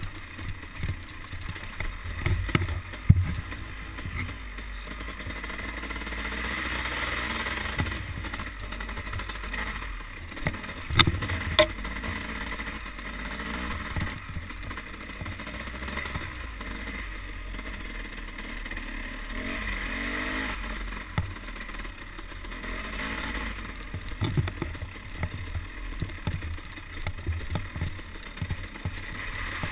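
Dirt bike engine running and revving as the bike rides a rough forest trail, its note rising and falling with the throttle over a steady low rumble. Sharp knocks from the bike hitting bumps and rocks, loudest about three seconds and about eleven seconds in.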